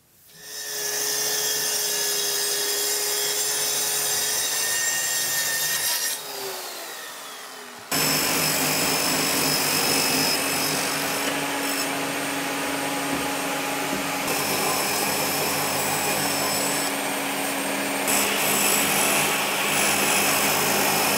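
Circular saw running and cutting 9 mm film-faced plywood. The motor spins up and runs steadily for about six seconds, then winds down. A second steady cutting run starts suddenly about eight seconds in and runs on.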